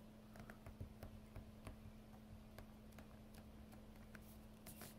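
Near silence: faint, scattered small ticks from hands pressing butyl sealing tape onto the roof opening's metal flange, over a faint steady low hum.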